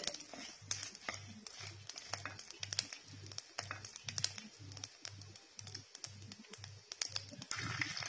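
Mustard and cumin seeds crackling and popping in hot ghee in a clay pot, with dried red chillies frying alongside and a wooden spatula stirring. The pops are sharp and irregular, several a second, over a faint low pulse that repeats two or three times a second.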